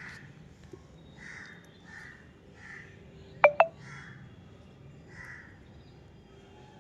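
A series of short, soft, rasping animal calls, roughly one a second, with two sharp clicks in quick succession about halfway through.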